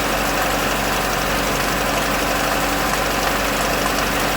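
Chevrolet Lacetti 1.8-litre four-cylinder engine running steadily at slightly raised revs, with a metallic rattle like a bucket of bolts from the variable-length intake manifold flaps: the bushings on the flap shaft are worn, so the flaps rattle.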